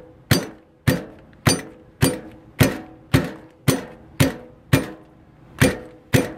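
Cube steak in a plastic freezer bag being pounded flat on a countertop with the flat bottom of a stainless steel espresso maker: a steady run of sharp knocks, about two a second, each with a short ring, with one brief pause about five seconds in.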